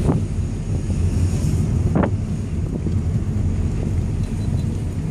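Car cabin noise while driving: a steady low engine and road rumble, with a brief knock about two seconds in.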